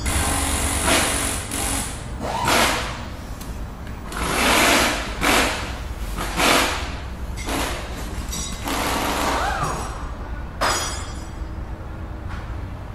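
Sound effects of an animated video outro: a run of short rushing noise sweeps and hits, about ten of them, over a steady low drone.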